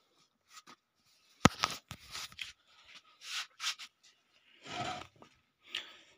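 Handling noises with the chainsaw's engine not running: a single sharp click about a second and a half in, then a string of short scrapes and rustles with quiet gaps between them.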